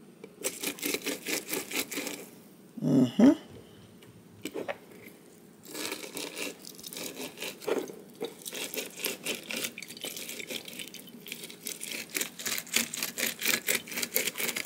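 Lemon halves being twisted back and forth on a hand citrus juicer: quick rhythmic rubbing strokes, about five a second, in two runs with a pause between them. A short, louder pitched sound comes about three seconds in.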